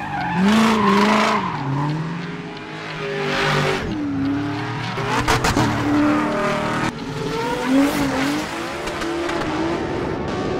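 Toyota Mark X's V6 engine revving while its tyres squeal in a drift, the squeal wavering up and down in pitch and swelling in loudness more than once.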